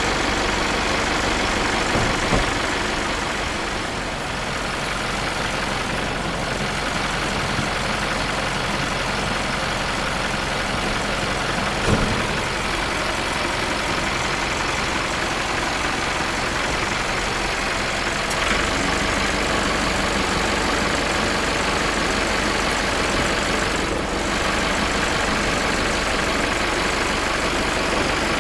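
Old truck's diesel engine running steadily at idle, with two short knocks, about two seconds and twelve seconds in, the second louder.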